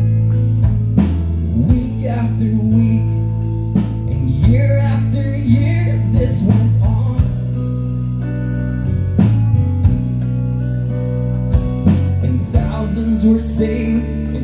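Live gospel song: a strummed acoustic guitar over steady low bass notes, with a man's voice singing in places, the longest sung stretch in the first half.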